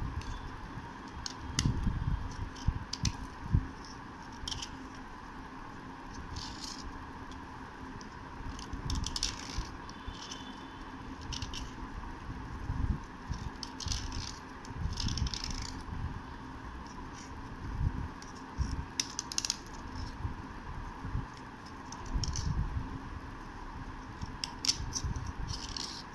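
A metal blade scraping a soft slate triangle dry, with irregular scratchy strokes and small clicks as flakes of slate chip off.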